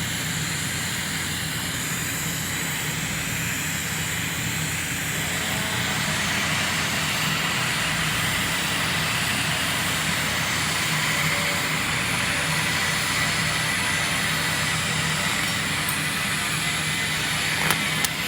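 Argon (TIG) welding: a steady noise with a faint high tone, growing a little louder about five seconds in, with a sharp click near the end.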